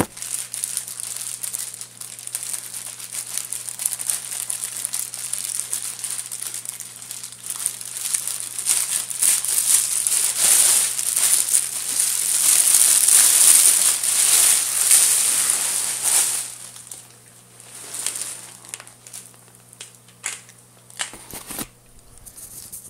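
Plastic wrapping crinkling and crackling as a large aquarium canister filter is pulled out of its packaging. It builds to its loudest and most continuous in the middle, then thins to scattered crackles over the last few seconds.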